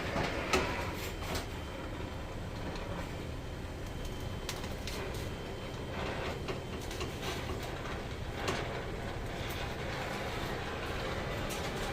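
Steady low mechanical rumble with scattered sharp clicks and knocks.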